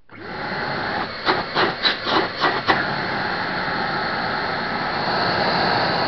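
Electric vacuum cleaner switched on, its motor quickly coming up to a loud, steady whooshing run. A quick series of about six knocks falls a second or so in.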